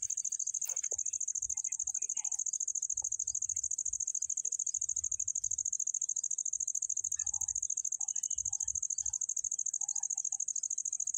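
Insects trilling: a steady, high-pitched chirring with a fast, even pulse that does not let up.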